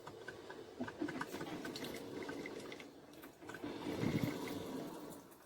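Cuisinart filter coffee machine brewing quietly: hot water sputtering and gurgling as it sprays through the filter, with small irregular pops, swelling twice.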